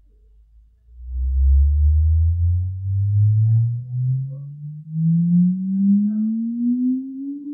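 Sine-wave test sweep played through a home-theater speaker system with subwoofer: a single tone sliding slowly and steadily upward from deep bass into the low midrange. It is faint at first and turns loud about a second in; it is the low end of a full-range 20 Hz to 20 kHz sweep used to measure the room's frequency response.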